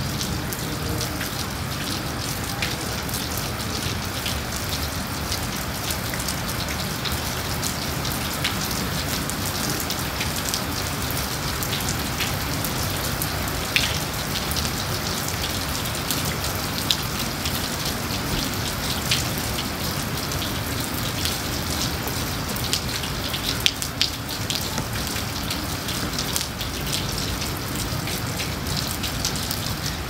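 Steady rain falling: an even hiss with scattered louder drops ticking through it.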